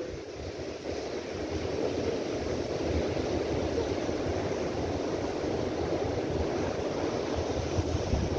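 Rough sea surf breaking and washing in foam over a beach of rounded boulders, a steady rush of water, with wind gusting on the microphone as a low rumble.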